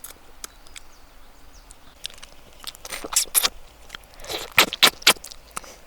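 Close-up eating sounds: a person chewing and crunching food, with irregular wet clicks and several louder smacking bursts from about halfway through.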